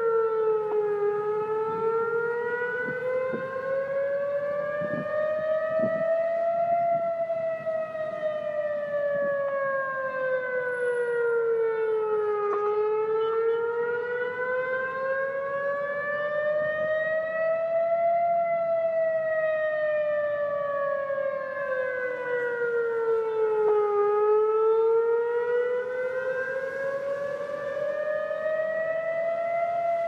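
Emergency siren sound effect sounding a slow, even rise and fall in pitch. Each rise or fall takes about six seconds, and the siren goes through about two and a half full cycles without a break.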